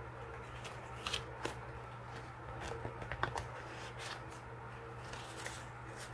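Paper sheets and cards rustling and flicking as fingers leaf through a tightly packed stack and pull a bundle out: a string of short, crisp rustles, with the sharpest flicks about a second in and around the middle.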